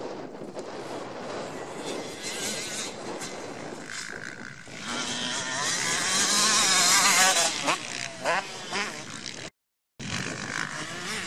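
Motocross motorcycle engines revving on the track, the pitch climbing and wavering as a bike comes closer, loudest about six to seven seconds in. The sound cuts out for a moment near the end.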